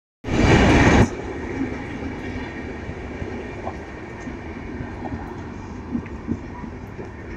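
Passenger train of red-and-grey LHB air-conditioned coaches running past: a steady rumble of wheels on the rails with scattered sharp clacks. It opens with a loud rush of noise for about the first second that cuts off abruptly.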